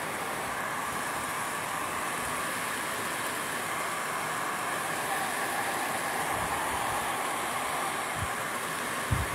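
Rain falling steadily, a constant even wash of noise, with a couple of soft low bumps near the end.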